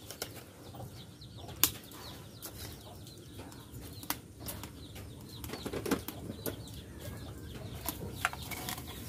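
A few sharp clicks and taps of a metal spoon against a glass salt jar and its lid, over a faint steady hiss. The loudest tap comes a little under two seconds in.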